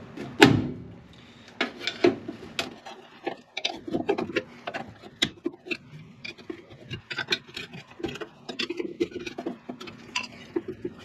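Irregular light metallic clicks and clinks as a seized rear brake drum on a 1974 VW Transporter is pried and worked by hand with a screwdriver, with a louder knock about half a second in. The drum is stuck and will not come off.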